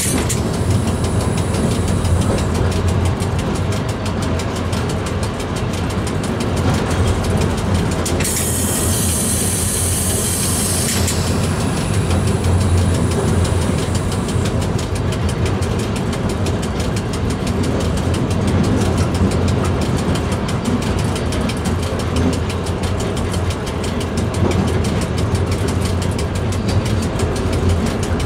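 Train running through a long railway tunnel: a steady, loud rumble of wheels on rail, echoing off the tunnel walls. About eight seconds in, a high squeal joins for about three seconds.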